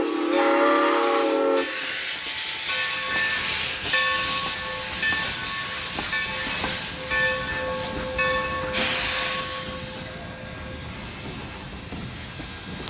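Steam locomotive whistle blowing a chord of several notes, cutting off about two seconds in, followed by steady steam hissing with a louder burst of hiss about nine seconds in.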